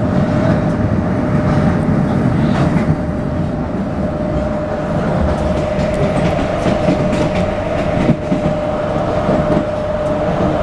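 CAF articulated electric multiple unit running along the line, heard from inside the car: steady rumble of wheels on rail with scattered clicks over the track and a steady whine under it.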